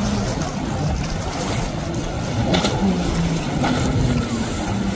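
Jet ski engine running over choppy water, its pitch dipping and rising as the throttle changes, with a steady rush of water and wind.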